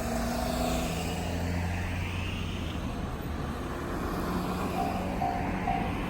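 A road vehicle's engine runs with a steady low hum and a rising whine early on. About five seconds in, the level crossing's standard JR electronic warning bell starts, dinging about twice a second.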